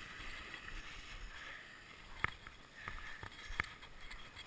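Walking on packed snow while carrying a plastic foam sled: soft rustling and crunching, then several sharp clicks and knocks in the second half.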